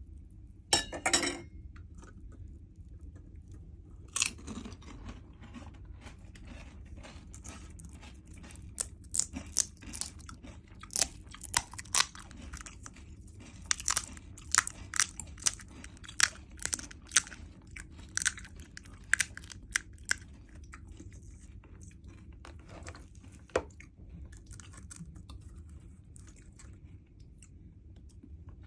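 Crunching and chewing of crisp, hollow pani puri shells being eaten. A short loud crackle comes about a second in, and then a dense run of sharp crunches fills the middle of the stretch.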